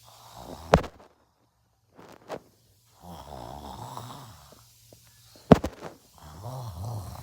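A person snoring: two long, low snores, one starting about three seconds in and another near the end. Two loud sharp clicks, one under a second in and one just before the second snore.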